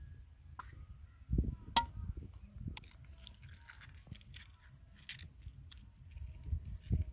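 An egg being cracked against a clay dish and dropped in: a sharp click about two seconds in, with lighter clicks and taps around it, over a low rumble.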